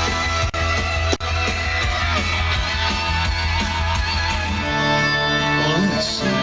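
Rock music with guitar playing through the Volvo S70's factory stereo speakers, heard inside the car's cabin. The music switches abruptly to a different song about five seconds in as the radio is changed.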